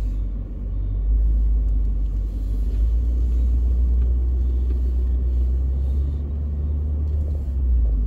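Low, steady rumble of a car heard from inside its cabin as it drives slowly across a grass field.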